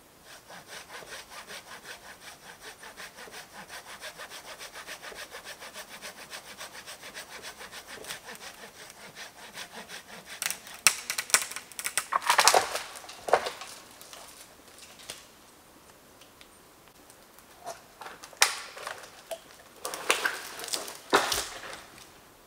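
Hand saw cutting through a wooden pole with quick, even strokes, about four or five a second, for the first ten seconds or so. Then come two spells of loud cracking and snapping of wood, one about halfway through and one near the end.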